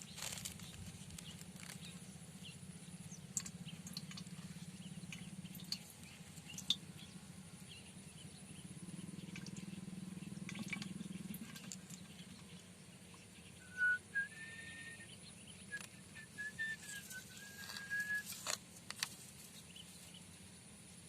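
Riverside outdoor ambience: a steady low hum with scattered light ticks and taps. A short run of thin whistled bird notes comes a little past the middle.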